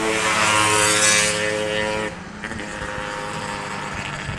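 Airbus A320's jet engines running loud on the landing rollout, a roar with a layered whine, then dropping off sharply about two seconds in as they spool down, leaving a quieter steady rumble.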